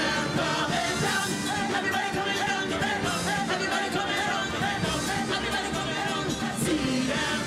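Live steelpan orchestra, with a symphony orchestra, playing a carnival pan song; the sound is full and continuous.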